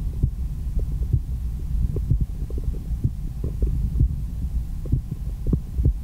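A woman's heartbeat heard through an MD One stethoscope on her chest: repeated low thuds over a steady low rumble.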